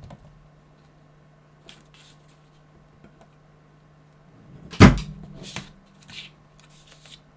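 Spot welder built from a microwave-oven transformer firing a weld into nickel strip on an 18650 cell: one sharp loud snap with a low thump about five seconds in, followed by two quieter clicks, over a faint steady hum.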